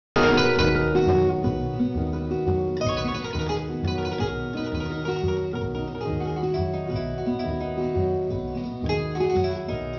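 Instrumental music: a plucked-string melody over a bass beat about twice a second.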